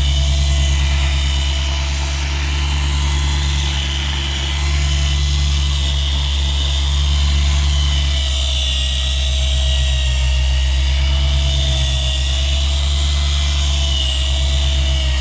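Electric polisher running steadily, a low motor hum with a steady high whine over it. A hard foam pad spins on a few drops of polishing paste over a scratched plastic boat hatch, buffing the scratches out.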